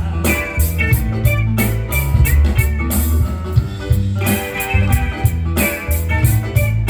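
Live band playing an instrumental passage between sung verses of a romantic Latin American ballad: a strong bass line under guitar and drum-kit hits, with no singing.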